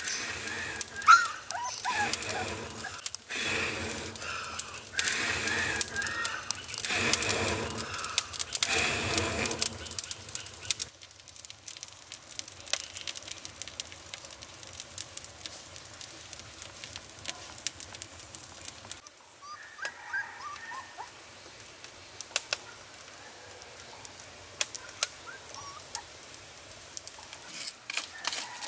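Animal calls repeat for roughly the first ten seconds and come back briefly near the middle. Through the rest, a wood fire crackles in a small brick fireplace with sharp pops.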